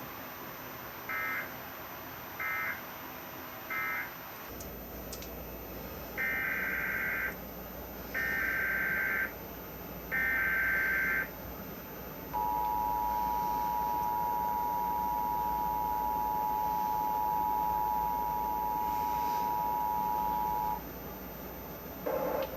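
Emergency Alert System digital data bursts: three short end-of-message bursts, then three longer SAME header bursts about two seconds apart. Each is a harsh warbling buzz. They are followed by the two-tone EAS attention signal, held steady for about eight seconds. Together they mark the close of one relayed severe thunderstorm warning and the start of the next.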